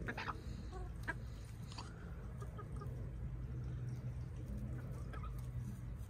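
Backyard hens clucking softly while foraging, a few short scattered clucks over a low steady rumble.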